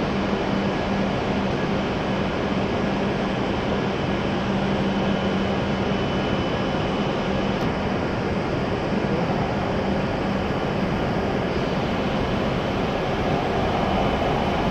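Steady hum and hiss of a shinkansen station platform, with a low steady tone that stops about nine seconds in. Near the end, an arriving E7-series shinkansen approaches and its running noise grows louder.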